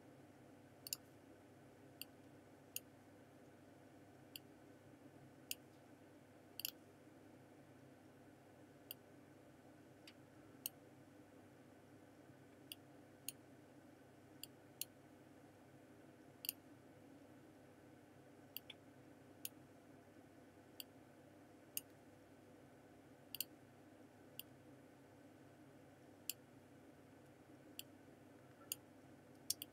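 Computer mouse button clicking: sharp single clicks at uneven intervals, about one a second, sometimes in quick pairs, over a faint steady room hum.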